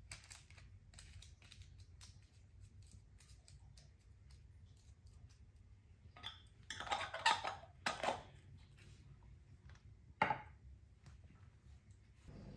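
Glass jam jars being handled on a kitchen worktop: light clicks and taps, a louder clatter of glass about seven seconds in, and a single sharp knock of a jar set down about ten seconds in.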